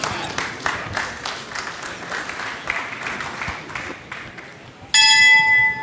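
Fast rhythmic clapping, about four or five claps a second, then about five seconds in a single loud clang of the boxing ring bell that rings on and fades, marking the end of a round.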